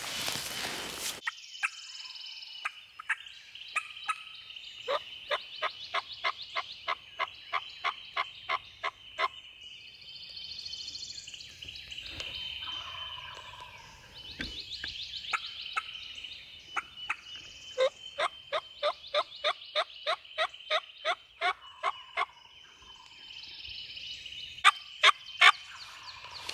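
Wild turkey calling: two long, regular runs of sharp yelp-like notes, about three a second, with a few louder single notes near the end.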